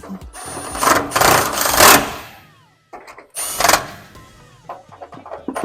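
A power tool runs in two bursts, the first about two seconds long and the second shorter, over faint background music.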